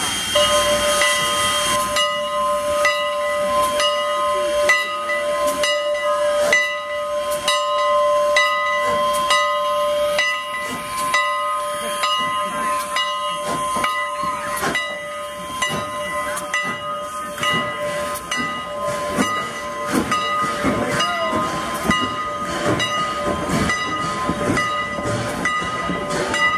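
Bell of steam locomotive No. 89, a 2-6-0, ringing steadily at about two strokes a second as the train pulls out, with steam hissing during the first two seconds.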